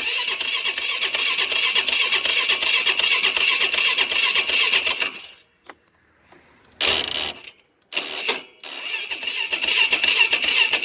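Polaris Sportsman 500 HO's electric starter cranking the single-cylinder engine, which turns over without catching: one crank of about five seconds, two short bursts about seven and eight seconds in, then cranking again from about nine seconds on. This is the crank-no-start condition.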